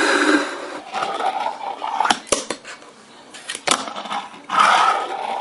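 Fingerboard (finger-sized skateboard) scraping along a miniature metal handrail and platform, with sharp clicks of the board's tail and wheels knocking down.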